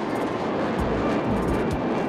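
Loud, steady rush of jet aircraft engine noise.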